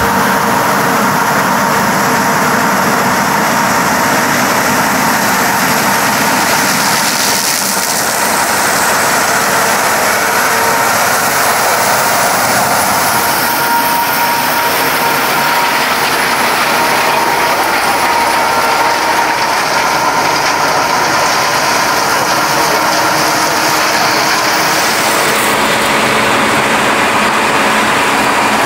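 Heavy farm machinery running steadily at corn harvest: an engine under load with a constant mechanical rush and a steady high whine.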